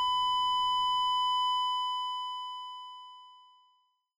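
Flatline sound effect: one steady, high electronic beep tone that holds, then fades out over about two seconds from a second and a half in, signalling death.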